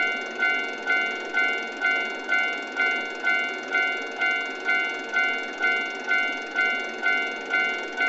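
Japanese railroad crossing warning bell ringing "kan-kan", a high two-note ring struck evenly a little over twice a second, over a steady rushing noise.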